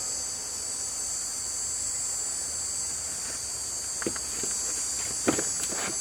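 Steady high-pitched cricket chirring, with a few sharp plastic and metal clicks and knocks from about four seconds in as engine-bay parts are handled and refitted.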